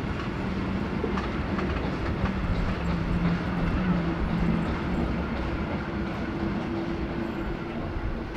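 Old Länderbahn-era passenger coaches of a heritage steam train rolling past, their wheels rattling and clacking over the rail joints, with a faint low drone underneath.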